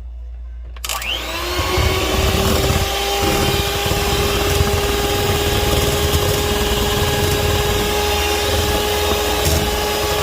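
An electric kitchen mixer switches on about a second in; its motor whine climbs quickly to a steady pitch and keeps running at speed.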